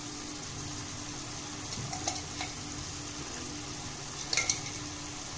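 Mushroom and capsicum masala frying in a pan, sizzling steadily as a spoon stirs it. A few sharp clicks of the spoon against the pan about two seconds in and a louder clatter of them a little past four seconds.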